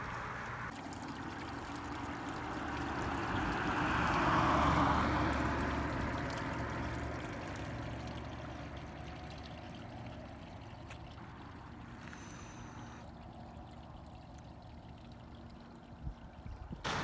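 Leak water from a failing city water line trickling along a street gutter, with a passing vehicle swelling up and fading about four to five seconds in.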